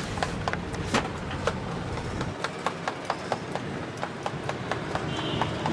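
Quick, uneven clicking and tapping of cooking utensils at an egg omelette stall, about three or four taps a second, over a low steady hum.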